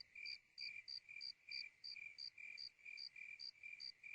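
Crickets chirping faintly in an even rhythm of about three chirps a second.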